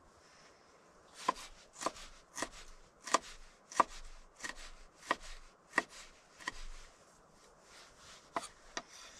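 Kitchen knife chopping a green vegetable on a wooden cutting board, one sharp stroke about every two-thirds of a second starting about a second in, then a few scattered, fainter cuts near the end.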